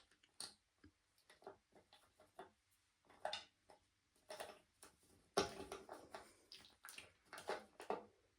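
Faint, irregular clicks and taps of small plastic toilet fill valve parts being handled and fitted together, the loudest about five and a half seconds in.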